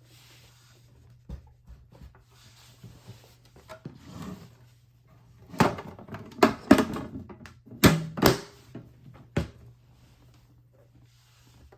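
A 1959 Smith Corona Sterling portable typewriter being lifted out of its carrying case. Soft handling and rustling, then about six sharp knocks and clunks of the machine against the case over some four seconds in the middle.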